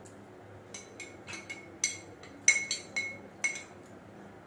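A spoon clinking against a container about nine times in quick, uneven strokes, each with a short bright ring, as ghee is scooped out to add to the dal.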